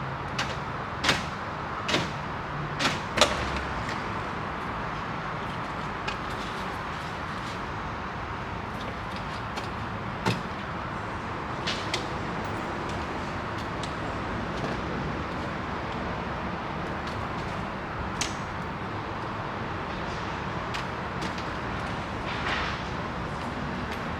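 Scattered sharp clicks and knocks from hand work on a truck door, a handful close together in the first few seconds and a few single ones later, over steady background noise.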